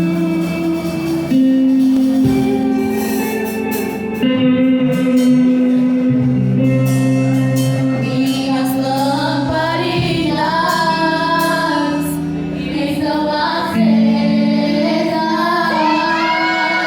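Worship song: sustained instrumental chords, joined about halfway through by female voices singing.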